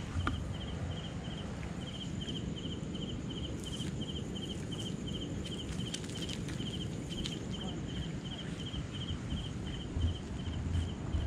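An insect chirping steadily, short high chirps at about two and a half a second, each chirp made of a few quick pulses. Low rustling runs underneath, with a couple of knocks near the end.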